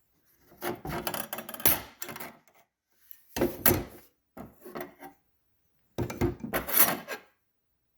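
Powerglide transmission clutch plates being handled and wiped with a rag on the bench. There are four separate bursts of rubbing and scraping.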